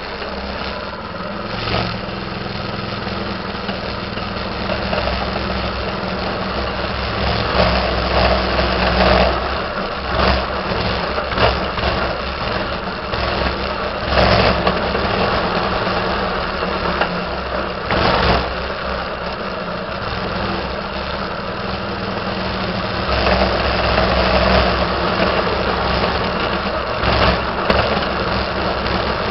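Minibike's small engine running while riding, getting louder a few times as it is throttled up and easing off between, with scattered sharp knocks.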